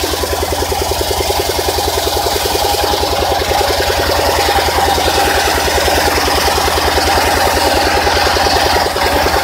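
Engine-driven circular sawmill running, its engine giving a steady low rhythmic thumping throughout. From about three seconds in, the blade rips along a log, adding a loud high hiss that falls away just before the end.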